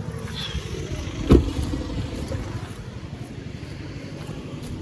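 Steady low rumble of road traffic, with one loud clunk about a second in.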